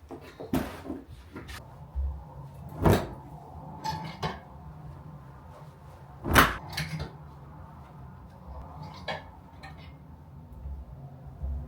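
A handful of separate knocks and thumps, as of objects being handled and set down; the loudest comes about six seconds in.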